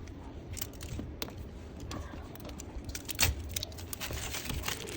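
Handling noise: a scatter of light, irregular clicks and small rattles over a low hum, with a slightly stronger knock about three seconds in.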